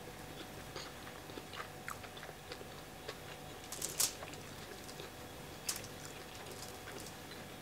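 Close-miked eating of jollof rice: soft, wet chewing clicks and mouth smacks throughout, with a sharper crackle about four seconds in and another near six.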